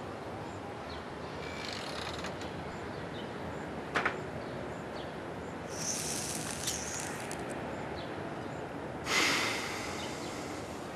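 Over a steady outdoor background, a drag on a cigarette gives a thin high hiss about six seconds in. About nine seconds in comes a long breathy whoosh as a puff of smoke is blown out, the loudest sound here, fading away over about a second.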